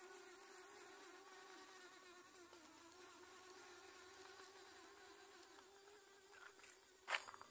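Small electric drive motors of a homemade remote-control robot giving a faint, steady whine with a slightly wavering pitch as it drives. A sharp click about seven seconds in.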